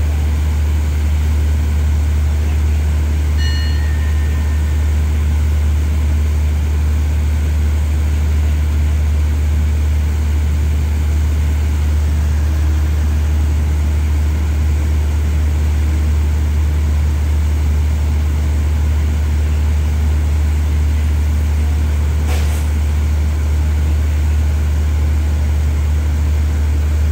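Steady low drone of a stationary passenger train's diesel engines idling while it stands at the station waiting to depart. A short high tone sounds about three and a half seconds in, and a single sharp click comes near the end.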